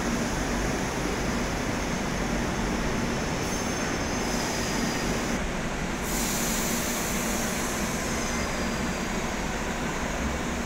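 Madrid Metro train moving along the platform of an underground station: a steady rumble of wheels and motors, with a faint high whine that comes and goes twice.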